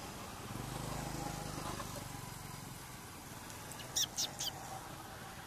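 A distant motor vehicle's engine hums, swelling and then fading over the first couple of seconds. About four seconds in come three quick high-pitched chirps.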